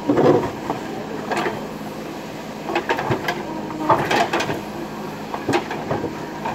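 JCB backhoe digger working: the diesel engine hums steadily under a few sharp metallic clanks and knocks scattered through, from the digging arm and bucket.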